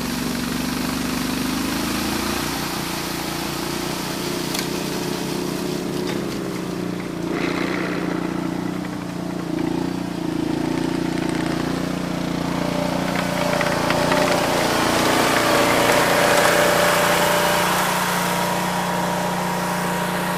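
Eliet Snowbob 9018T snowblower engine running steadily while the machine clears and throws snow. Its note shifts in pitch about two seconds in and again about halfway through, and it gets louder in the second half as the machine comes up close.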